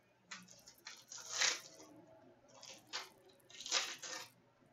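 Hockey-card pack wrapper crinkling and rustling as it is handled and opened by hand, in several short bursts, the loudest about a second and a half in and again near the end.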